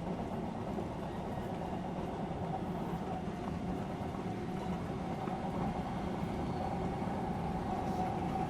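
Odakyu electric train running along the line, heard from inside the train: a steady rumble of wheels on rails, with a faint whine that becomes clearer about halfway through.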